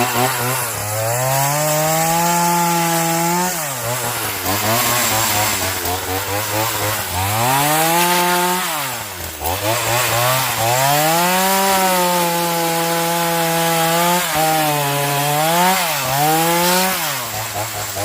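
Ryobi gas chainsaw's two-stroke engine revving up, holding and falling back to idle again and again. About nine seconds in it nearly dies before picking back up: the saw won't stay running.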